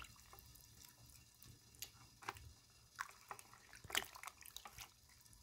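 Faint splashing and dripping of water as hands rub and squeeze dried salt fish in a basin of rinse water, with a few short soft splashes scattered through.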